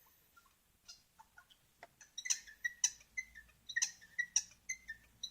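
A bird chirping: a quick series of short, sharp chirps, about three a second, starting about two seconds in after a few faint ticks.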